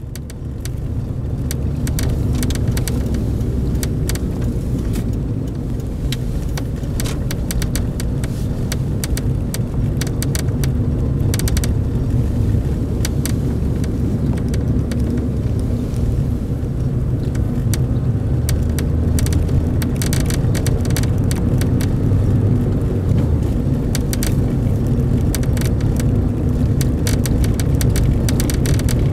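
Toyota Corolla XRS cabin with a steady low rumble from the running car. Over it come irregular sharp ticks, bunched in clusters, from the plastic rear parcel deck near the rear window.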